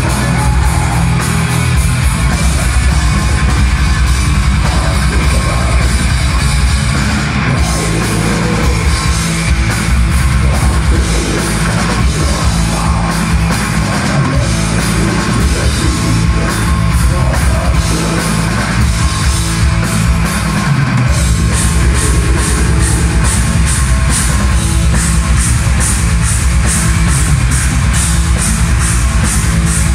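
Black metal band playing live at full volume, heard from the audience: distorted electric guitars, bass and drums in a dense wall of sound. About two-thirds of the way in, fast, evenly spaced cymbal and drum strikes come to the fore.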